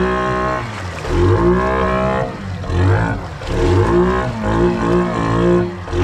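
ATV engine revving up and down over and over, its pitch falling and rising every second or two as it pushes through deep pond water, the water churning around it.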